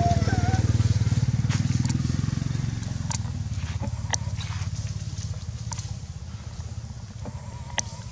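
A motorcycle engine running nearby, a steady low hum that fades gradually after about two seconds as the bike moves away. A few sharp clicks sound over it.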